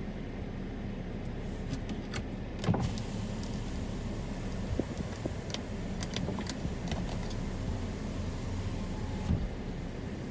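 Steady low rumble heard from inside a stationary car buffeted by strong storm wind, with scattered light clicks and a soft thump about two and a half seconds in.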